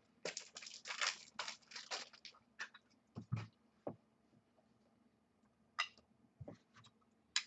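Trading cards being handled: a quick run of short scratchy slides and rustles as cards are shuffled and set down, then a few scattered taps and slides.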